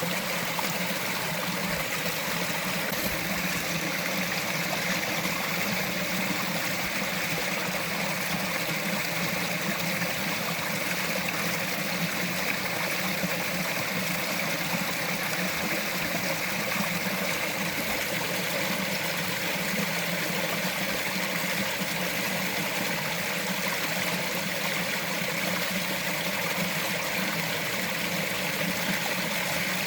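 Small mountain forest stream flowing, a steady babbling trickle of water over rocks.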